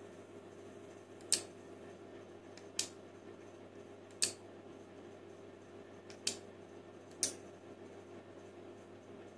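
Relays on a remote-controlled two-relay receiver board clicking five times, a second or so apart, as they switch the lamp loads on and off in answer to keyfob button presses. A faint steady hum runs underneath.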